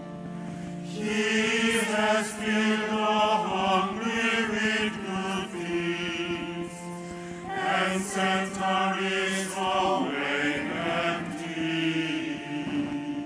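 Voices singing an evensong canticle in chant, holding long notes and moving from phrase to phrase with brief breaths between.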